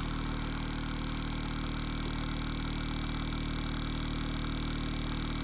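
Opove Apex percussion massage gun running at full speed on its third setting: its brushless motor and beating head make a steady, even hum, very quiet for such a gun.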